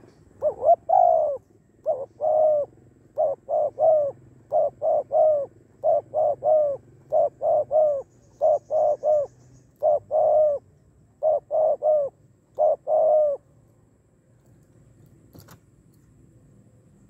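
Spotted dove cooing: a run of short phrases of two or three coos, each note dropping slightly in pitch, stopping about thirteen seconds in. A single faint tap follows near the end.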